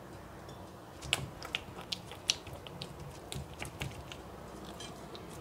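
Fork and fingers spreading beaten egg yolk over rolled-out dough in a glass pie dish: irregular small sticky clicks and taps, a few of them sharper.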